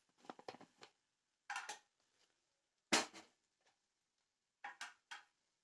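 Kitchen utensils and containers being handled: a run of short clatters and clicks, with the loudest, a sharp knock, about three seconds in, and three quick clatters near the end.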